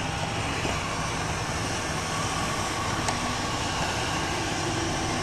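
Roomba robot vacuum running steadily.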